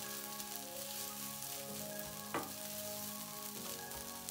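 Kimchi fried rice sizzling in a stainless steel frying pan as metal tongs break up the rice and stir it in, with one light knock about two seconds in.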